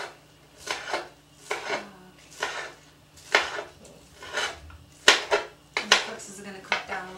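Kitchen knife rough-chopping scallions on a cutting board: a sharp knock each time the blade hits the board, about one a second at an uneven pace.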